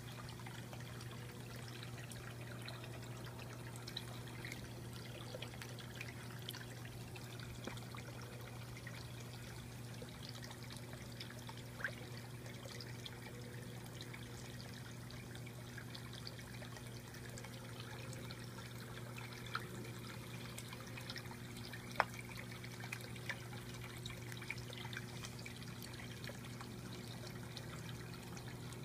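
Water from a Tetra Pond filter fountain trickling and splashing steadily into a turtle pool, over the pump's steady low electric hum, with a few sharper drips now and then.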